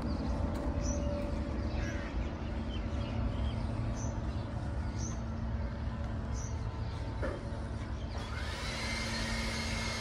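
Outdoor park ambience: a steady low rumble with scattered short bird chirps and a steady low hum. About eight seconds in, a louder rushing sound with a whine that rises and then falls sets in.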